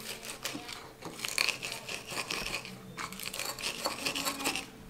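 Metal pestle crushing chillies and garlic cloves in a plastic bowl: irregular crunching and squishing strokes as the ingredients are pounded into a paste.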